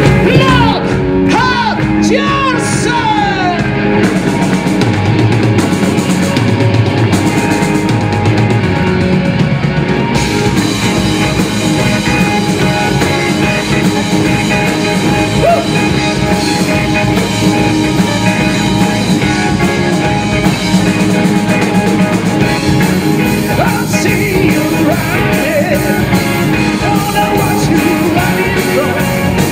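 Live rock band playing through a PA, with a male singer over electric guitar, bass guitar, drums and keyboard. The band's sound grows fuller and brighter about ten seconds in.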